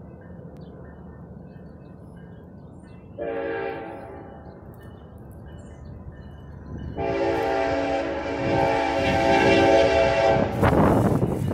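Locomotive chime horn sounding a short blast about three seconds in, then a long blast of several steady tones held for about three and a half seconds, with the train's rumble growing under it. A loud rushing noise takes over just as the long blast ends.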